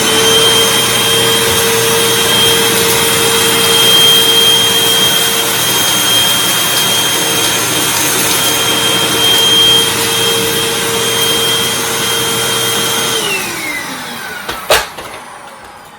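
Hoover WindTunnel T Series bagged upright vacuum cleaner running steadily at full power, with a constant whine over a rushing hiss. About thirteen seconds in it is switched off and the motor spins down with a falling whine, followed by a single sharp click.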